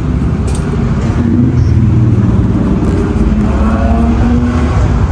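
Car engine and road noise while driving: a loud, steady low rumble.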